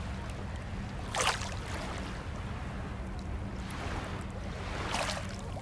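Shallow seawater lapping and splashing around someone sitting in it, with wind rumbling on the phone's microphone; two louder splashes, about a second in and near the end.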